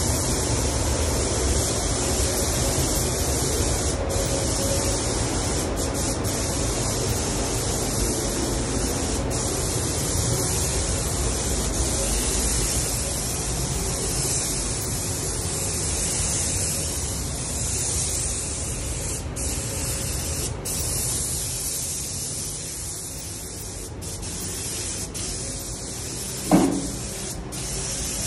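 Compressed-air paint spray gun hissing steadily as paint goes onto a car body, over the low rumble of the spray booth's air handling. About 26 seconds in, one brief loud sound drops quickly in pitch.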